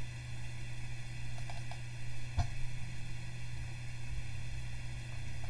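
Steady low electrical hum and faint hiss of room tone, with a few faint clicks about one and a half to two and a half seconds in, typical of a computer mouse being clicked.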